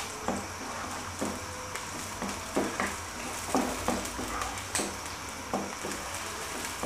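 Sliced onions sizzling in hot oil in a nonstick wok, being fried until light brown. A wooden spatula stirs them, scraping and knocking against the pan at irregular moments.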